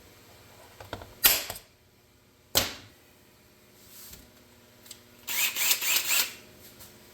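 Center punch being struck to mark hole centres on a metal dash panel: two sharp strikes a little over a second apart, then a light tap, and near the end about a second of quick clattering.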